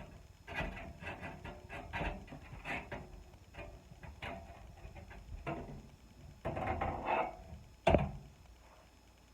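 Motherboard being handled and set into a PC case: a run of small clicks, taps and scrapes, a longer scraping stretch past the middle, and one sharp knock near the end, the loudest sound.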